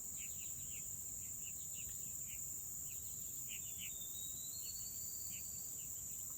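Steady high-pitched drone of insects, with scattered short chirps and one long thin whistle about four seconds in.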